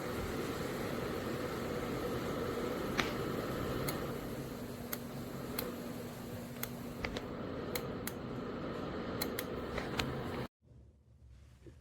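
Small portable ceramic space heater's fan running steadily with a low hum and a few light clicks. The sound cuts off suddenly about ten and a half seconds in, leaving quiet room sound.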